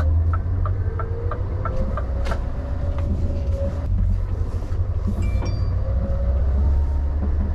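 Scania truck's diesel engine running with a deep steady rumble inside the cab as the truck creeps along at low speed. For the first few seconds a regular sharp ticking comes about three times a second.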